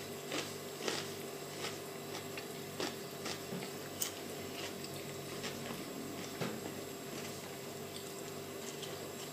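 A person eating by hand and chewing: scattered small wet clicks and smacks of the mouth over quiet room tone.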